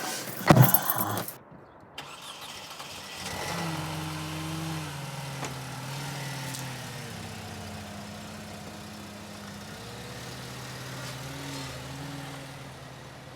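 Short handling clatter, then a few seconds in a Mercedes-Benz car engine comes in and runs at a steady idle. Its pitch sags and rises a little as the car is moved.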